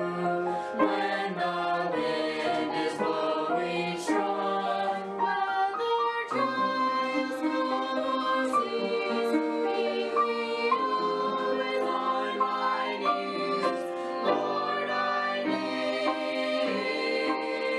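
A small group of mixed men's and women's voices singing a sacred song together in harmony, with held notes.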